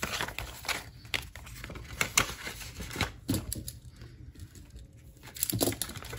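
Paper banknotes and cash envelopes rustling and crinkling as bills are handled and sorted, in a string of irregular short rustles.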